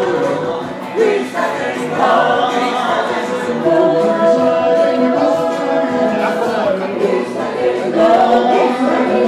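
A singing waiter's voice amplified through a microphone, singing a song with one long held note in the middle.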